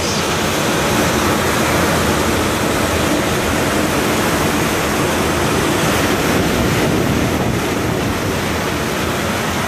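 A cooling tower running: the belt-driven fan on a newly replaced motor pulley turning, and water falling through the tower, as one steady, loud rushing noise.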